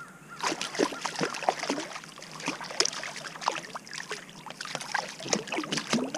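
Hooked white bass thrashing at the surface beside a kayak, a rapid, irregular run of splashes and slaps starting about half a second in.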